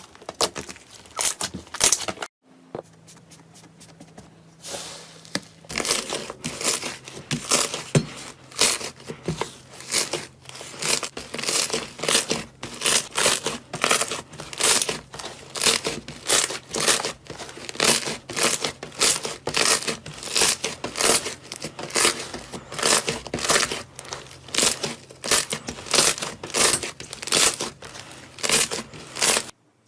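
Slime being squeezed and pressed by hand, giving a rapid run of crinkly, crackling clicks at about two to three a second. A brief silence comes about two seconds in, after which the same kind of crackling goes on over a faint steady hum.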